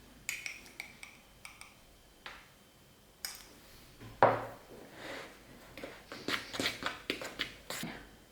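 Kitchen utensils clinking and knocking against a mixing bowl while flour and salt are mixed for taralli dough, a few separate clicks at first, one sharp knock about four seconds in, then a quick run of clatter and scraping near the end.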